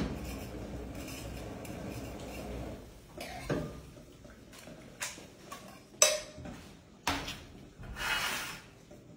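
Metal fork and ladle clinking and scraping in a metal frying pan as sauced tagliolini are stirred, with a few sharp metallic knocks in the second half, the loudest about six seconds in. A steady low hum runs under the first three seconds.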